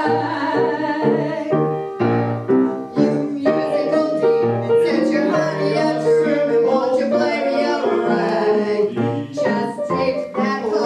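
Singing with grand piano accompaniment, an old-fashioned song performed live.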